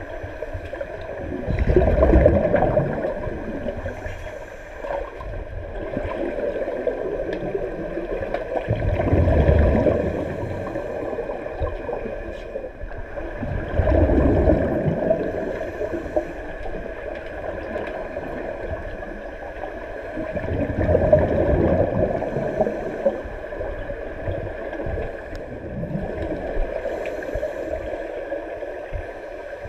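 Underwater recording of scuba regulator exhaust bubbles: a gurgling rush about every five to seven seconds as a diver breathes out, over a steady underwater hum.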